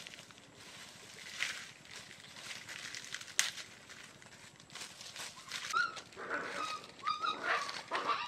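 Dry grass and twigs rustling and snapping as they are pulled up and gathered by hand. From about six seconds in, geese call several times in quick succession with short calls.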